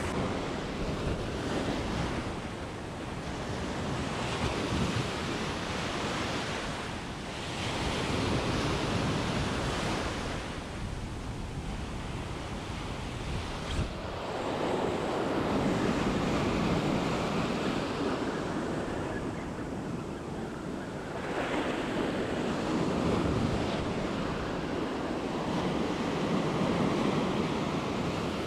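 Ocean surf breaking on the beach and foam washing up the sand, swelling and fading every few seconds, with wind buffeting the microphone.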